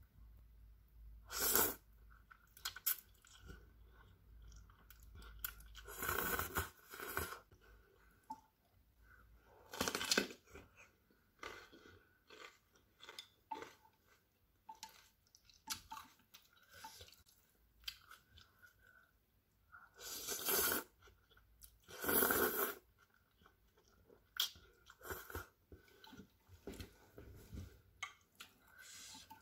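Close-miked chewing of stir-fried instant noodles with vegetables, wet with some crunch, broken by about five louder bursts as mouthfuls of noodles go in.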